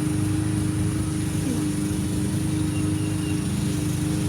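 An engine running steadily at constant speed, an even low hum.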